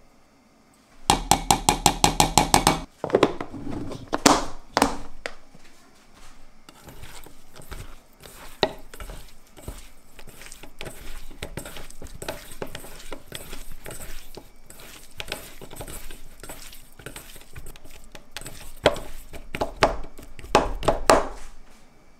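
A wooden spoon knocking quickly against a stainless steel mixing bowl, about a dozen even, ringing taps, then a few louder knocks. Raw chicken pieces are then mixed by hand with potato starch in the bowl, a soft squishing and rubbing, with a few more knocks against the bowl near the end.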